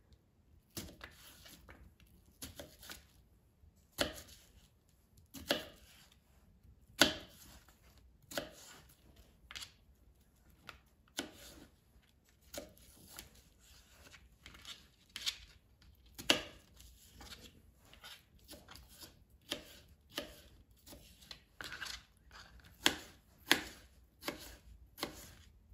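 Chef's knife cutting cucumber into thin strips on a plastic cutting board: irregular sharp knocks of the blade against the board, about one or two a second.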